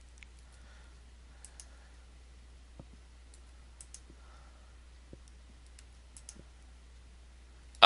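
Faint computer mouse clicks, about a dozen scattered irregularly, over a low steady electrical hum.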